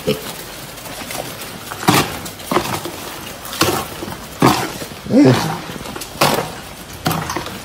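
Young piglets, about four to five weeks old at weaning, giving short grunts and squeals about six times as they are driven along.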